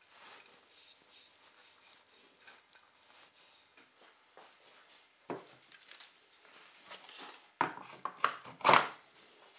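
Handling of wooden workshop pieces: light rustling, scraping and small taps, then a cluster of louder knocks late on as a wooden router jig with its router is set onto the workbench.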